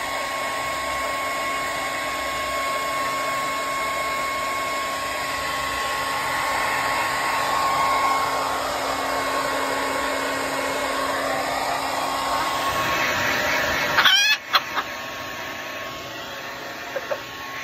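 Handheld hair dryer running steadily, drying a freshly bathed chicken. About 14 seconds in the dryer cuts off and a chicken gives a short call.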